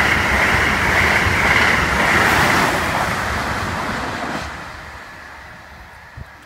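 Amtrak Acela Express electric trainset passing close at speed: a loud, steady rush of wheels on rail and air. It fades away from about four seconds in as the tail of the train draws off, with one short click near the end.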